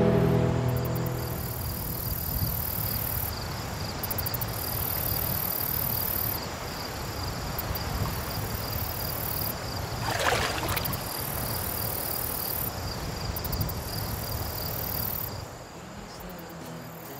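Insects chirping steadily, with a very high buzzing that starts and stops every few seconds, over a steady low outdoor rumble. There is one brief swish about ten seconds in.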